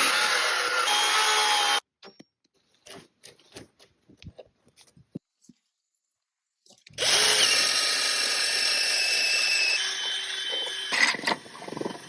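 Power drill running in two long bursts, each starting and stopping suddenly, with light clicks and knocks of handling in between and a few sharper knocks near the end.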